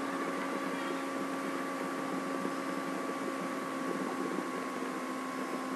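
Steady electrical hum with hiss, holding a few constant tones and no distinct events.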